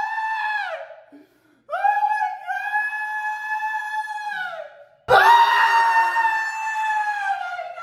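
A person's long, high-pitched screams, each held steady for about three seconds before the pitch drops off; three in a row with short breaks between them.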